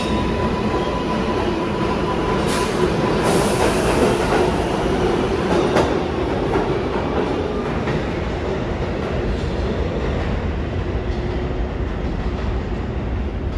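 New York City subway train running through the underground station: a steady, loud rumble of wheels on the rails, with a thin steady squeal in the first few seconds and a few sharp clacks.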